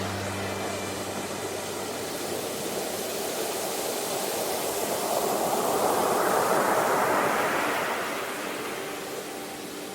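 Sea waves breaking on a shore: a steady hiss of surf, with one wave swelling over a few seconds to its loudest a little past halfway and then washing back down.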